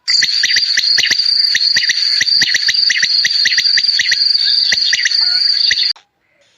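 Insect calling: a loud, steady high-pitched trill with rapid irregular clicks running through it, cutting off suddenly near the end.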